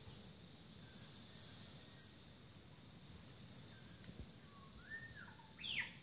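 Steady high-pitched buzz of insects, with a few short whistled bird calls near the end, the loudest a quick rising-and-falling call just before the buzz fades.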